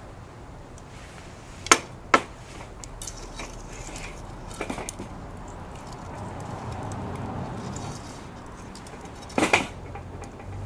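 Wood fire crackling, with a few sharp loud pops about two seconds in, another near the middle and a double one near the end.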